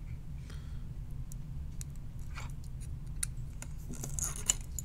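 Faint scattered clicks and rustling from fingers handling a small circuit board and pushing LED leads through its holes, over a steady low hum.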